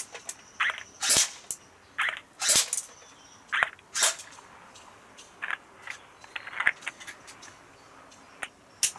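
Tokyo Marui Glock 18C electric airsoft pistol firing single shots at a metal knock-down target box. Each shot brings a short snap and a sharp crack as the BB hits; there are about four in the first four seconds, then fainter ticks and one more crack near the end.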